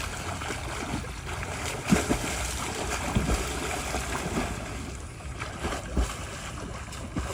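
Water splashing and lapping around a small home-made boat, with a few dull knocks over a steady rushing hiss.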